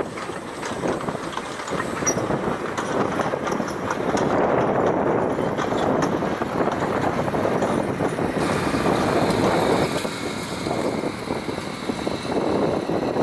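Narrow-gauge steam train running past, its carriages rattling along the track with a steady rumble and scattered clicks. A faint steady high tone joins in about eight seconds in.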